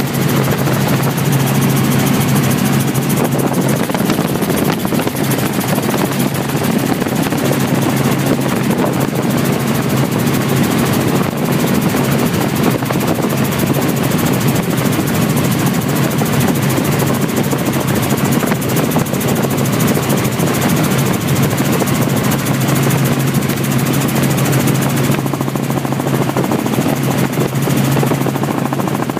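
Helicopter in flight: steady, loud rotor and engine noise with an even low drone, unchanging throughout.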